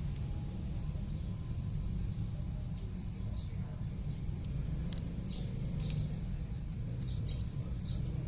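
Kitten chewing on a raw suckermouth catfish: scattered short, high clicks over a steady low rumble.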